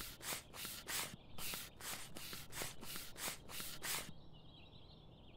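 Rhythmic rustling strokes at a flocked air bed, about three a second, stopping about four seconds in. Faint bird chirps follow.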